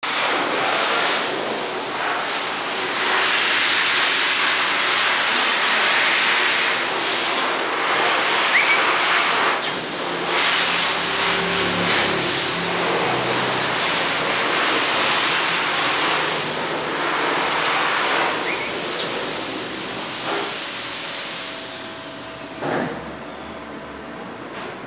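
Blower-type pet dryer running with a steady loud hiss and a thin high whine. Near the end it is switched off: the whine glides down and the hiss falls away.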